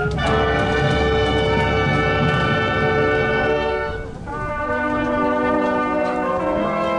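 Brass band playing long held chords, with a short break about four seconds in before the next phrase begins.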